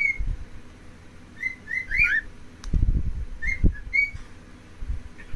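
Cockatiel whistling short, clear notes in three little phrases, some gliding up and down in pitch, with a few low bumps in between.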